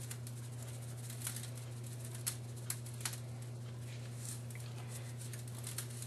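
Spice shaker shaken over a raw chicken thigh in a foil pan, the dry rub pattering down in faint, scattered ticks over a steady low hum.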